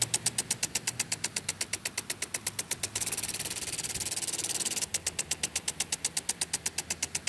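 A machine running with a low steady hum and a rapid, even ticking of about ten clicks a second. A hiss swells for a couple of seconds in the middle.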